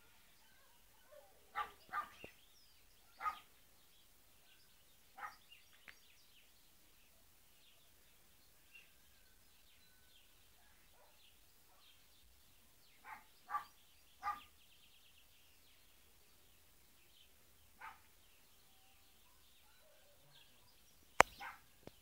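A dog barking now and then, in single barks and in quick runs of two or three, with faint bird chirps in between. A sharp click near the end.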